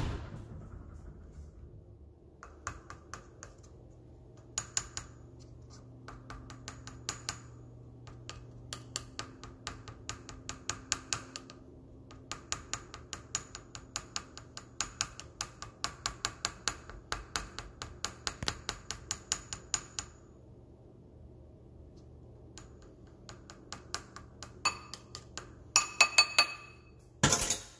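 A utensil clinking repeatedly against a ceramic bowl as salmon fillet is broken up in it, a few light clinks a second, with a few louder knocks near the end.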